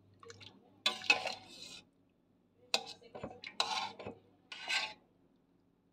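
A utensil knocking and scraping in a metal stockpot in four short bursts while ingredients go into the pot.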